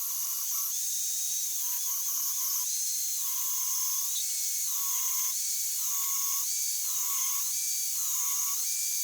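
High-pitched whine of a power tool cutting steel, its pitch dropping and rising again about once a second as the cut loads and unloads it.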